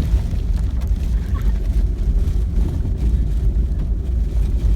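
Loud, continuous low rumbling noise that flutters in level, with no clear tone or rhythm.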